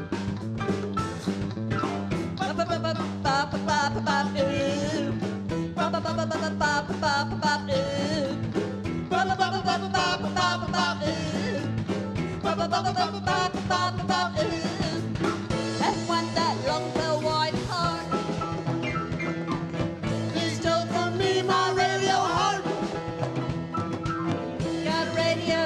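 Live band playing an acoustic arrangement of a pop song, with a steady repeating bass pattern under a wavering melody line.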